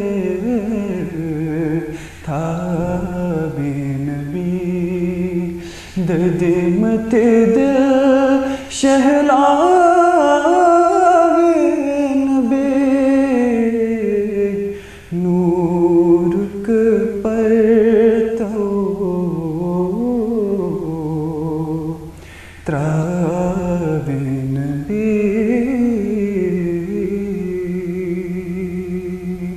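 A man singing a naat, a devotional poem in praise of the Prophet, solo and unaccompanied, in long melodic phrases of held, wavering notes with short breaths between them.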